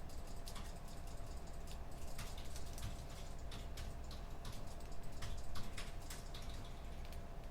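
Computer keyboard typing: irregular, quick key clicks, over the steady low hum of the room.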